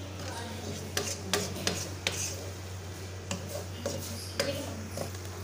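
Wooden spatula scraping and stirring chopped vegetables around a kadai, with a few irregular knocks of the spatula against the pan.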